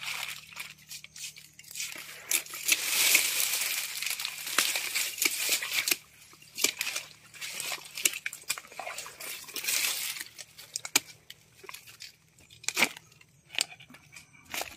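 Rustling and crackling of a plastic sack and cut asam paya palm stalks and fronds being handled and stepped on, with scattered sharp clicks and snaps. It is densest in the first few seconds and dies away after about ten seconds, leaving only occasional clicks.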